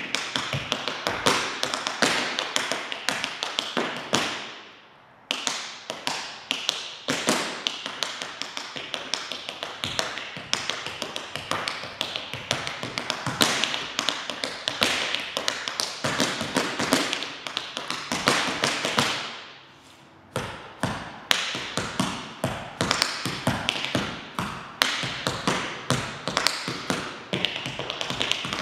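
A cappella tap dancing: metal taps on two dancers' tap shoes striking a hard studio floor in fast, dense rhythms, with no music. The tapping stops briefly twice, about five seconds in and again about nineteen seconds in, and the taps ring out in the room before it starts again.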